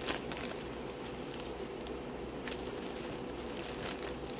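Clear plastic bags of diamond painting beads crinkling and rustling as hands rummage through them, with a few soft clicks.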